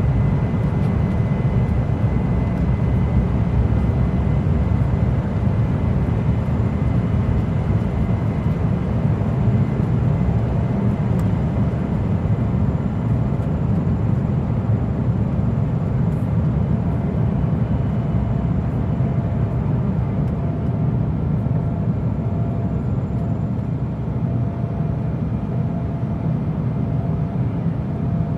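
Airliner cabin noise during takeoff: a steady, deep rumble from the engines and rushing air, with faint thin whining tones over it that fade a little in the second half.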